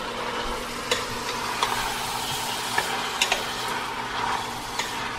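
Tofu, pineapple, mushrooms and peppers sizzling in oil in a stainless steel pot while being stirred with a wooden spatula. Steady frying noise, with a few sharp knocks of the spatula against the pot.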